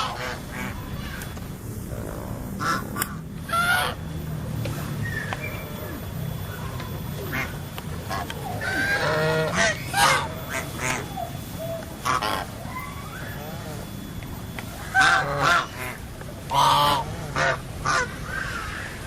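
White geese honking: scattered single calls, then bursts of several calls close together, with the busiest runs in the middle and near the end.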